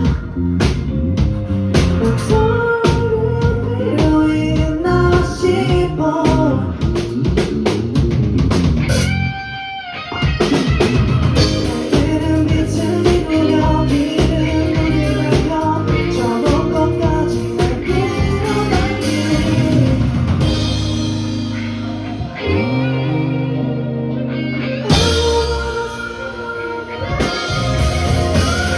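Live rock band performance with singing, electric guitar and drum kit. The music thins briefly at about ten seconds, drops to a sparse passage of held low notes about two-thirds of the way through, then the full band comes back in.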